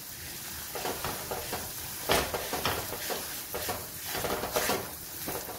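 Semolina sizzling in hot ghee while a silicone spatula stirs and scrapes it around the pan in irregular strokes, the first stage of roasting rava. The strokes are loudest about two seconds in and again near the end.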